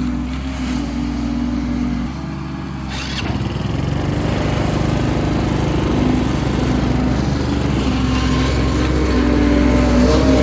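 Excavator's diesel engine running, its note rising and growing louder about three seconds in as it takes on more power.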